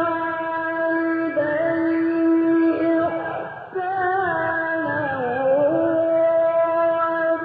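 A man's voice reciting the Quran in the drawn-out, melodic Egyptian tajweed style, holding long notes with ornamental turns and a dip in pitch about five seconds in.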